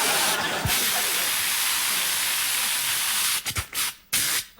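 A man's voice imitating a running shower into a microphone: a long steady hiss of spraying water that breaks into a few short spurts near the end.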